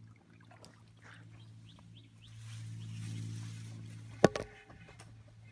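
Faint chirps of small birds over a low steady hum that swells in the middle, and one sharp knock with a brief ringing tone a little past four seconds in, as rod and reel are handled while playing a hooked tench.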